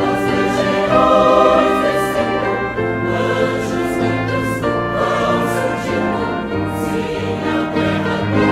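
Mixed choir singing a hymn in sustained chords, accompanied by a brass ensemble.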